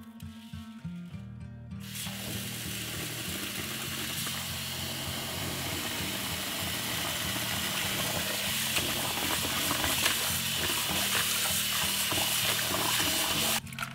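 Tap water pouring into a plastic bowl of long-grain rice in a steel sink as the rice is rinsed, with hands rubbing the wet grains toward the end. The tap comes on about two seconds in and shuts off abruptly just before the end.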